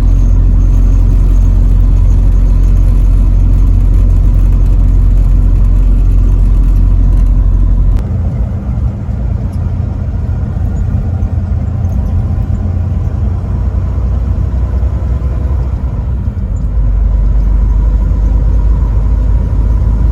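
Steady low rumble of a truck on the road, engine and road noise. It drops in level about eight seconds in and comes back up near the end.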